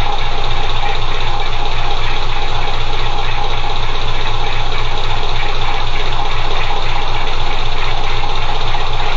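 BMC 2.2 four-cylinder diesel engine idling steadily, heard close up at the rocker cover, with a fast, even running rhythm.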